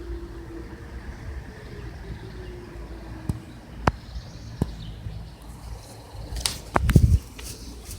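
Tornado warning siren winding down: a single tone slowly falling in pitch and fading out about three seconds in. A few sharp clicks follow, then a louder low rumble near the end.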